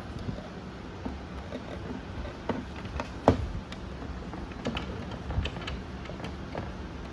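Scattered clicks and light knocks from hands handling plastic parts during disassembly, over a low steady hum. The loudest knock comes a little past the middle.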